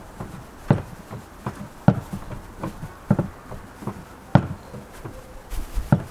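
Hands kneading soft egg dough in a glass bowl: a series of short, dull presses and slaps, roughly one or two a second, a few of them sharper than the rest.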